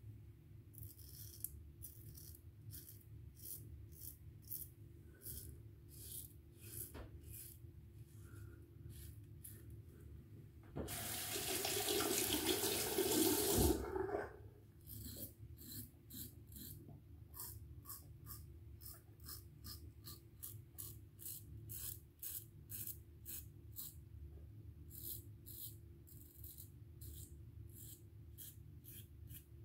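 Merkur Futur safety razor scraping through stubble in quick repeated short strokes during the first shaving pass. A water tap runs for about three seconds partway through and is the loudest sound.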